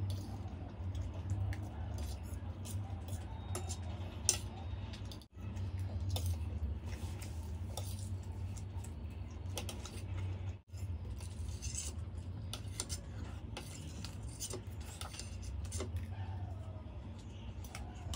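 A metal fork clinking and scraping on a stainless steel plate and a ceramic bowl as macaroni is scooped up, in many short, sharp clicks. The sound cuts out briefly twice.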